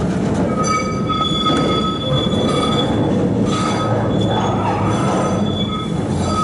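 Tram wheels squealing against the rails: a high, steady screech that starts about half a second in and comes and goes in several stretches, over the low rumble of the moving tram.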